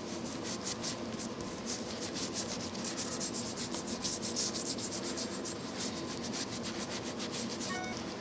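A cloth pad rubbed in quick back-and-forth strokes over an engraved chrome-plated sewing-machine faceplate, working Simichrome metal polish into the plating. The strokes stop shortly before the end.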